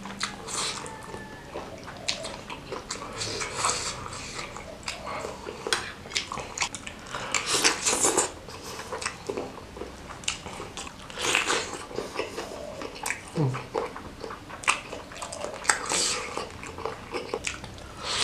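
Close-miked eating sounds: biting and chewing a large beef meatball (bakso) in spicy broth, with many short wet mouth clicks and a few louder slurps along the way.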